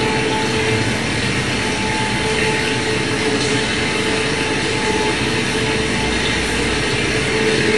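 Steady, dense rumbling noise with a held hum that fades in and out.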